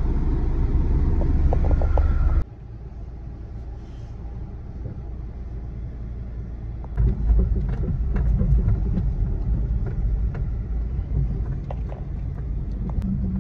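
Car cabin noise while driving slowly over a rough dirt track: a low rumble of engine and tyres, with small knocks and rattles from the uneven ground. The rumble drops sharply at a cut about two seconds in and grows louder again about seven seconds in.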